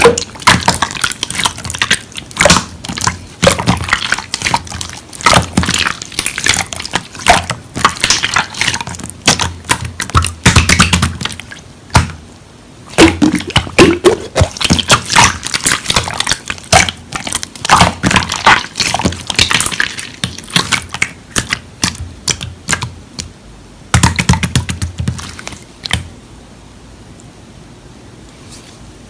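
Slime being squeezed, stretched and poked by hand, making dense wet clicking and popping sounds. There is a short pause about twelve seconds in, and near the end it drops to a faint hiss.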